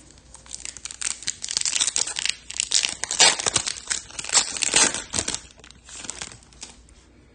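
Trading-card pack wrapper crinkling and tearing as it is opened by hand, in a run of crackling from about half a second in that dies away near the end.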